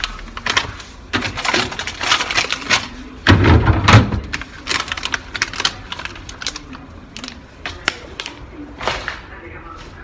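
Clicking, knocking and rustling of plastic food containers and wrapped packages being taken off refrigerator shelves, with a louder thump about three and a half seconds in.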